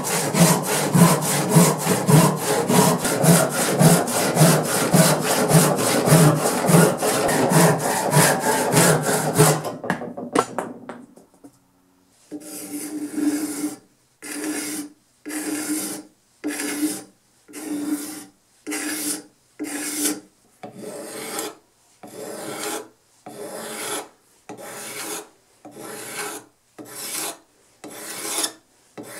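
A hand saw cutting through the end of a bitternut hickory handle with quick, even strokes, stopping about ten seconds in. After a short pause, a card scraper shaving along the hickory handle, about one stroke a second.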